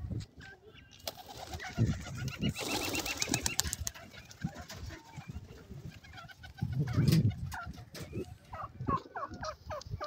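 Domestic pigeons cooing, with a burst of wing flapping about three seconds in. Near the end a quick run of short rising bird calls, about four a second.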